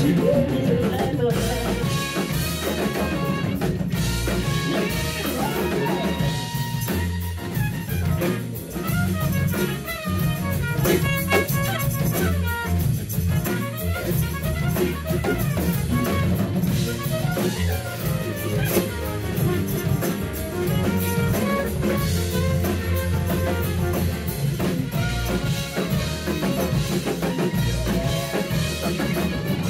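Live band playing an instrumental stretch with no singing: drum kit, electric bass, grand piano and a trumpet.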